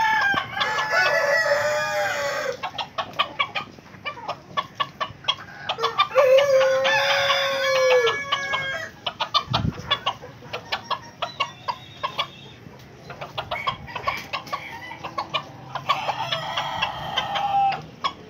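A rooster crows three times, each crow about two seconds long: near the start, about six seconds in, and near the end. In between are chickens clucking and many short, sharp clicks.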